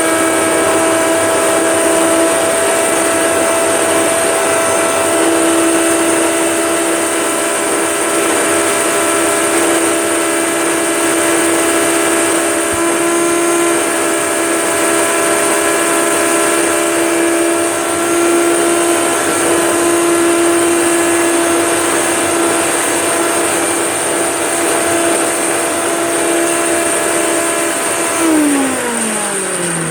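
Hoover Turbomaster upright vacuum cleaner running steadily, sucking through its hose and a floor head, with a steady hum and a high-pitched whine. Near the end it is switched off and the motor's pitch falls as it runs down.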